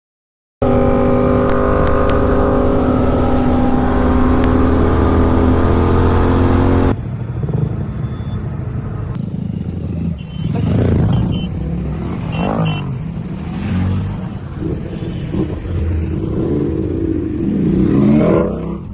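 Motorcycle engine running with a steady, slowly rising pitch. About seven seconds in the sound cuts to a rougher engine sound that rises and falls, with a few clicks.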